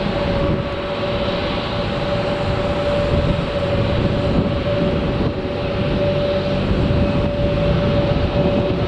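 Jet engines of an Airbus A319-112 (CFM56 turbofans) running: a steady loud rumble and hiss with a steady whine held over it.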